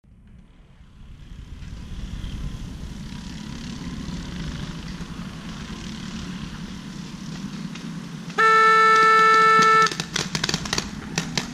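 A horn gives one steady, pitched blast of about a second and a half, the signal that starts a paintball game. Right after it comes a quick run of sharp pops: paintball markers firing.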